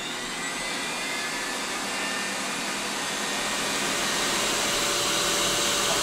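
Air-bath blower of an MTI Air Massage Elite tub running its automatic purge cycle after the tub is drained, starting at low speed and slowly speeding up: a steady noise with a whine rising in pitch, growing louder throughout.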